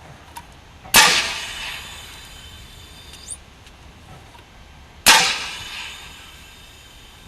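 Homemade panzerfaust-replica paintball rocket launcher firing twice, about four seconds apart. Each launch is a sharp blast of compressed gas with a hissing tail that fades over about a second.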